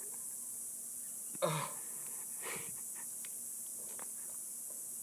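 A man's short, breathy gasp about a second and a half in, catching his breath between swigs of Sprite from a plastic bottle, with a weaker breath a second later and otherwise only steady background hiss.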